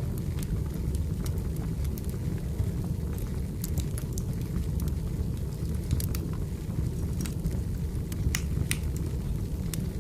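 Firewood burning: a steady low rumble of flames with scattered sharp crackles and pops at irregular intervals.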